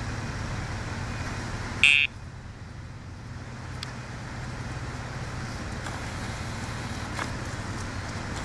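Steady road traffic noise, with one short, loud electronic beep about two seconds in.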